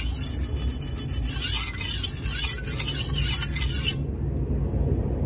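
Steel chef's knife blade stroked quickly back and forth across a hard, wet Dalstrong water stone, a gritty rasping that stops about four seconds in, over a steady low hum.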